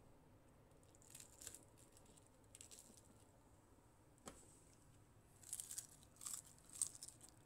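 Near silence, broken by a few faint, brief crackles and crunches and one sharp tap about four seconds in.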